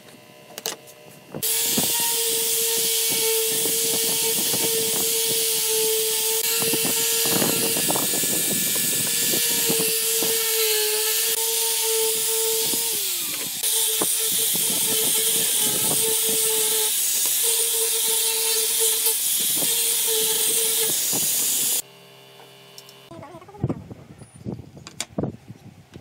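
Electric angle grinder with a sanding pad, sanding the face of a pallet pine board: a loud, steady whine with hiss. Its pitch sags briefly about halfway, then it runs on. It cuts off suddenly near the end, followed by a few light knocks of wooden boards being laid on the table.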